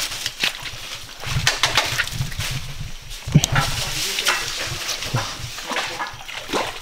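People stepping and wading through a shallow, muddy stream: irregular sloshes and splashes, with dry leaves and twigs crackling and knocking underfoot.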